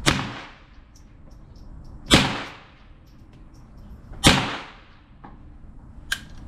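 Three .22LR rounds fired one at a time from an AR-15 pistol with a CMMG .22LR conversion kit, about two seconds apart, each shot a sharp crack with a short ringing tail. A short metallic click follows near the end.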